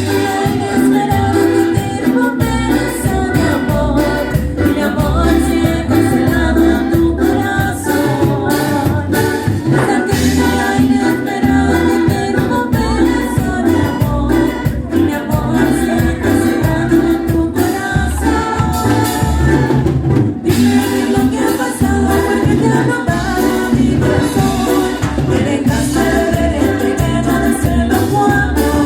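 Cumbia band playing live: steady dance music with a regular beat.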